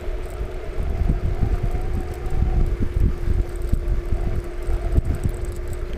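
Wind buffeting the microphone over the steady whine of the VSETT 8 electric scooter's 600 W hub motor, pulling up a hill at about 30 km/h.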